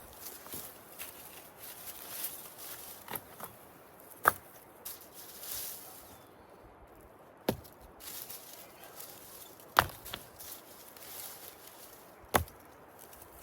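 Four sharp knocks, about two and a half seconds apart, over a faint outdoor background.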